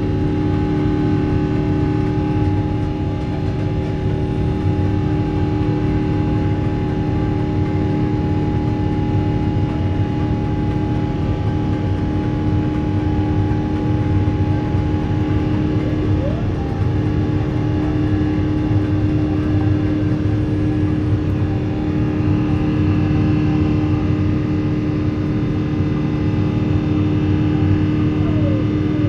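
Cabin noise of an Airbus A350-900 in flight or on its take-off roll: the Rolls-Royce Trent XWB engines and airflow make a steady, even drone with several constant whining tones, heard from inside the passenger cabin.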